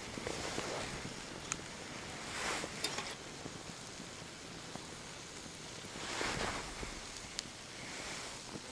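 Rushing outdoor noise, like wind, swells and fades three times, with a few scattered sharp clicks.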